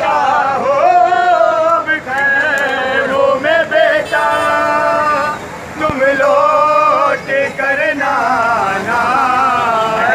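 Men's voices chanting a noha, the lament sung in a Muharram mourning procession. The melody wavers, with a long held note about halfway through.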